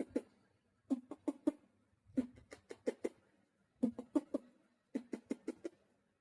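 A father's mouth sound effects: rhythmic groups of four or five short, sharp pops, about five a second, with a short pause between groups.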